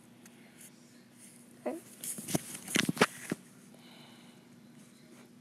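A quick cluster of taps and knocks, several within about a second and a half, from fingers tapping on the tablet's touchscreen, over a faint steady hum.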